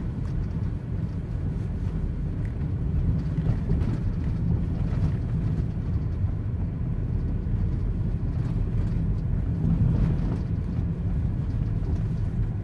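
Steady low rumble of a vehicle on the move, without distinct events.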